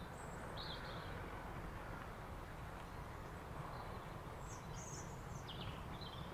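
Small birds chirping in short high calls, a few at first and a cluster later on, over a steady low rumble.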